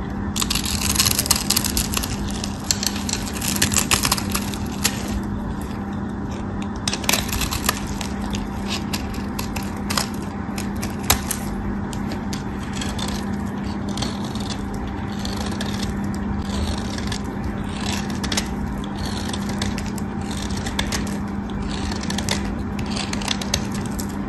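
Craft knife blade shaving and carving a dry, crumbly bar of soap: crisp crackling scrapes as flakes break off, densest in the first five seconds, then separate cuts every second or so. A steady low hum runs underneath.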